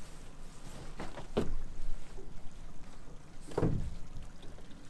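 A fishing pot being hauled by hand up the side of a small boat: the rope is pulled in and water sloshes and splashes, with a swish about every two seconds, the loudest a little over three seconds in as the pot comes up to the gunwale.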